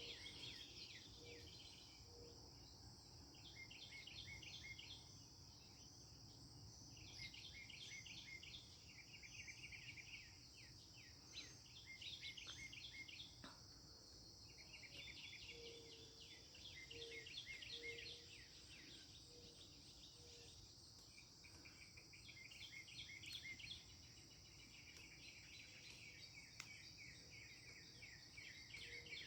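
Northern mockingbird singing faintly: bouts of quick, repeated chirping phrases with short pauses between them, mimicking other birds' songs. A steady high insect drone runs underneath.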